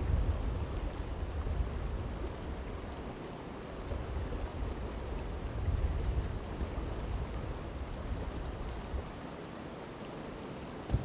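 Wind buffeting the microphone in gusts: a low rumble that swells and fades, loudest near the start and again about six seconds in, over a steady rushing hiss.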